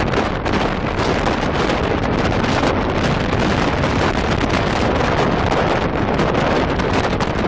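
Strong wind buffeting the microphone on a ship's open deck at sea: a loud, steady rushing noise with no let-up.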